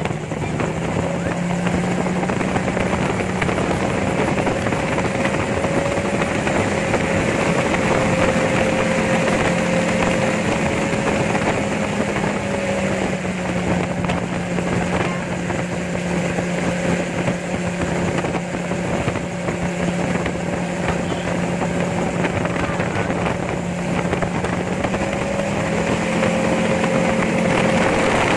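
Gyrocopter in flight: its engine and propeller drone steadily over wind rushing past the open cockpit. The engine note rises slightly about a second in, dips around halfway, and rises again near the end.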